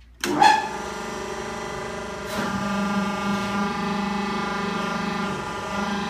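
Vertical hydraulic baler's electric motor and hydraulic pump starting suddenly and then running with a steady hum. About two seconds in there is a click, after which it runs slightly louder.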